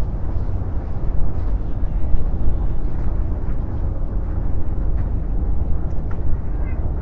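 Wind buffeting the microphone: a heavy low rumble that swells and drops with the gusts.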